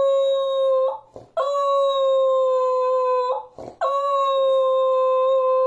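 Beagle howling at a steady pitch: one howl ends about a second in, then two more long howls of about two seconds each follow with short breaths between.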